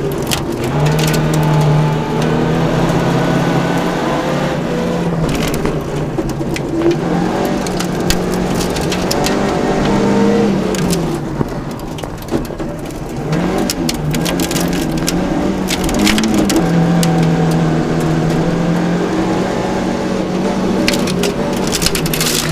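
Opel Ascona B rally car's four-cylinder engine, heard from inside the cabin, driven hard on a gravel stage: revving up through the gears and dropping back again and again. Several spells of gravel and stones crackling against the underbody.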